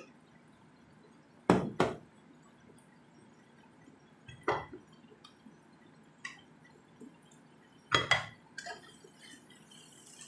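A wooden spatula knocking and clinking against a nonstick frying pan while stirring shredded chicken. There are a few sharp knocks, the loudest a close pair about a second and a half in and another cluster about eight seconds in, with lighter taps between.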